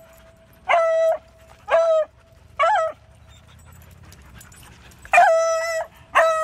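A dog giving a series of high-pitched, yelping whines, each holding an even pitch for under a second: three short ones in the first three seconds, then after a pause a longer one and another near the end.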